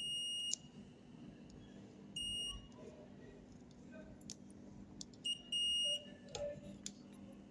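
Multimeter continuity beeper sounding three steady high beeps as test probes are touched to points on a circuit board: one ending about half a second in, a short one about two seconds in and a longer one about five and a half seconds in. Each beep marks a low-resistance path, a possible short, between the probed points. Faint clicks of the probe tips tapping the board come between the beeps.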